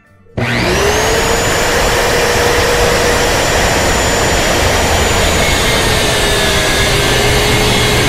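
SKIL handheld circular saw starting up about half a second in, its motor spinning up to a steady whine, then cutting an angle through a 1x12 board. The whine drops a little in pitch as the blade works through the wood.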